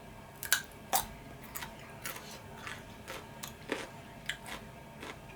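A person chewing food, a run of irregular short wet clicks and smacks from the mouth, the two loudest about half a second and a second in.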